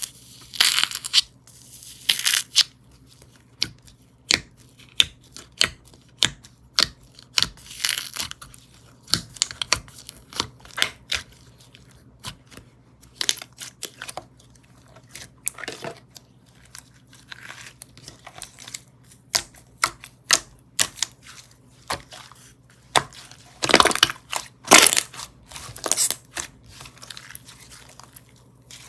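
Hands squeezing, pressing and stretching slime, making irregular sharp pops and crackles. Louder crackling stretches come about a second in, around eight seconds in, and again near the end.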